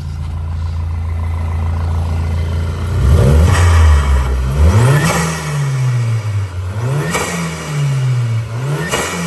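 Volkswagen Vento 2.0 turbocharged four-cylinder engine, stage 2 tuned, idling, then revved about three seconds in and blipped several times, its pitch climbing and falling, with a rush of intake noise at each peak.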